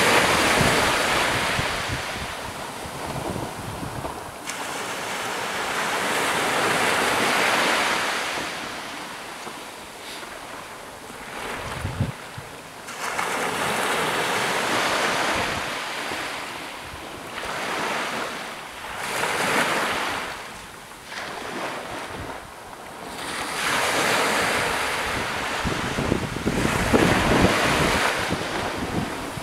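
Small waves breaking and washing up a sandy beach, the surf swelling and falling away in turn, about five or six washes.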